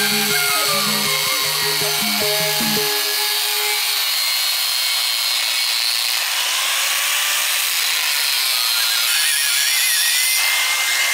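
Handheld angle grinder grinding a hand-forged steel khukuri blade, a steady high hissing whine of the disc on the steel. Instrumental folk music plays over it for about the first three seconds, then stops abruptly.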